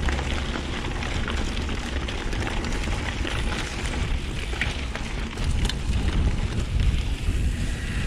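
Wind rushing over the microphone and a mountain bike's tyres rolling over loose gravel and dirt, with a few light rattles from the bike.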